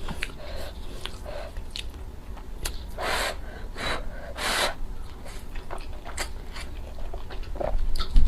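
Close-miked chewing and biting: wet mouth clicks and smacks throughout, with two longer hissing bursts, a slurp or breath, about three and four and a half seconds in.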